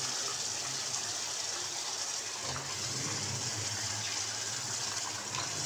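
Potato pieces sizzling steadily as they start to fry in the hot oily masala in the pot.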